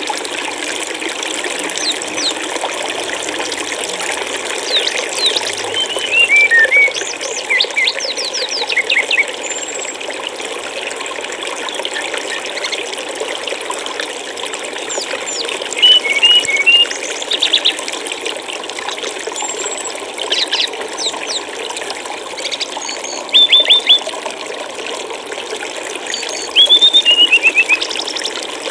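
Running water flowing steadily, with a small songbird singing over it in bursts of quick high chirps and short falling runs of notes several times.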